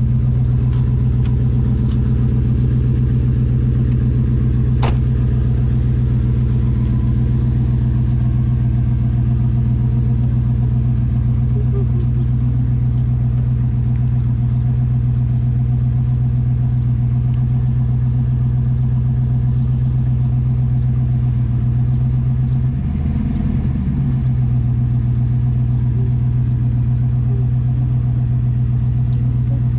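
1994 Pontiac Firebird Trans Am's LT1 5.7-litre V8 running at a steady, even speed, with a brief wobble in its note about 23 seconds in.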